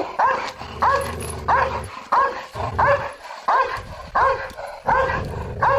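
Belgian Malinois giving a rapid run of short, high-pitched yelping barks, about two to three a second, with stretches of low rumble underneath.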